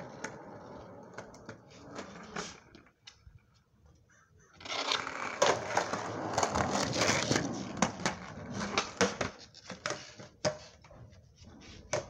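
Skateboard rolling on pavement: wheels rumbling with sharp clacks and knocks from the board. It is loudest for several seconds in the middle, after a short quiet gap, and fades to scattered clacks near the end.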